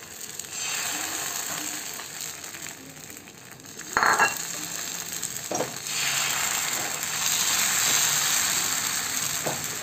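Pitha batter sizzling on a hot flat griddle (tawa) as it is poured and spread with a steel ladle, the sizzle growing louder about six seconds in. A short clatter about four seconds in.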